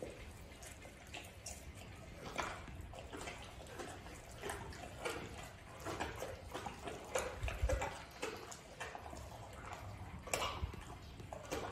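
White tiger chewing and tearing at raw meat: an irregular run of short mouth noises and tearing sounds.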